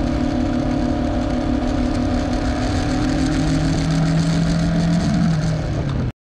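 Yamaha sport motorcycle's engine running at steady revs, with wind rush on the camera microphone. Its note bends briefly about five seconds in, and the sound cuts off abruptly near the end.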